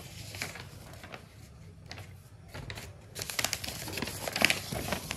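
Paper rustling and crinkling as crumpled newspaper packing and a paper bill are handled in a cardboard box. It is sparse at first and gets busier and louder from about three seconds in.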